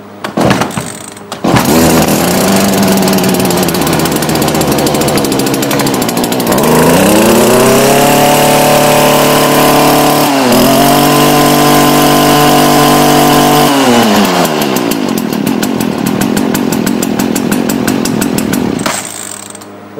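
Stihl FS 56 RC string trimmer's small two-stroke engine catching about a second and a half in and running at idle, then revved up to high speed for about seven seconds with a brief dip in the middle. It drops back to idle and is shut off just before the end.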